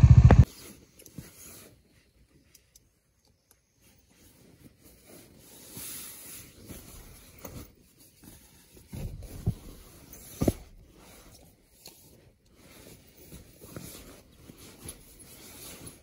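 Nylon sleeping bag and camping gear rustling and scraping as they are handled inside a small tent, with a couple of sharper knocks about ten seconds in.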